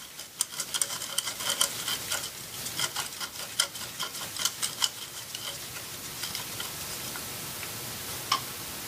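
Ratchet wrench clicking fast and irregularly as a 12 mm deep-well socket on an extension backs a glow plug out of the diesel's cylinder head. The clicking thins out to a few scattered clicks after about five seconds, with one sharper click near the end.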